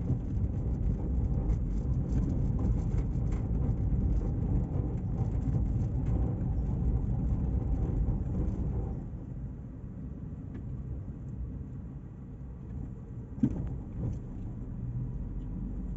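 Car interior road noise: the engine and tyres of a moving car heard from inside the cabin. The tyres are on paving blocks at first and the noise is louder, then it drops noticeably about nine seconds in, where the road is asphalt. A single short knock comes near the end.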